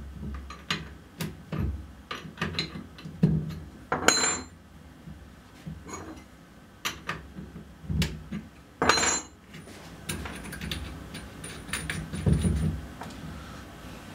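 Router bit change: a steel collet spanner clicking and clinking against the router's collet nut and spindle, with scattered metal taps and two brief ringing clinks, about four and nine seconds in.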